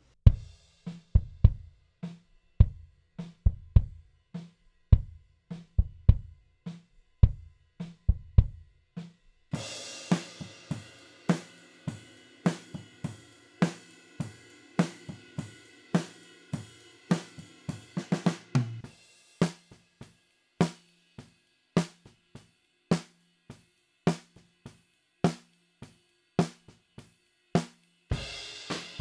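Playback of a recorded drum groove, one mic track at a time: first only the kick drum's low thuds from a Ludwig Classic Maple kit, then about ten seconds in the overhead mics bring in the whole kit with cymbals, and about nineteen seconds in the snare mics alone, a 5x14 Ludwig Acrolite snare with Evans coated G1 head cracking on the backbeat.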